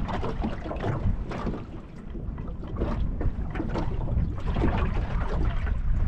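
Wind buffeting the microphone with a steady low rumble that eases briefly about two seconds in. Over it, choppy water splashes and laps irregularly against the small boat's hull.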